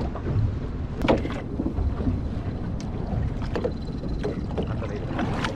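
Wind buffeting the microphone over small-boat water noise, water lapping against the hull of a small open fishing boat on choppy sea, with a few short knocks scattered through.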